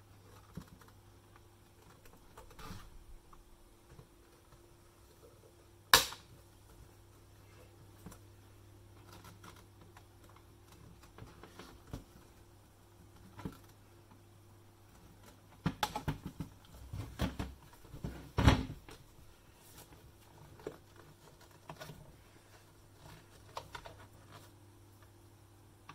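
Plastic housing of a Nescafé Dolce Gusto coffee machine being pried apart with a screwdriver and handled on a wooden bench: scattered clicks and knocks, with one sharp click about six seconds in and a flurry of knocks later on, the loudest a little past halfway.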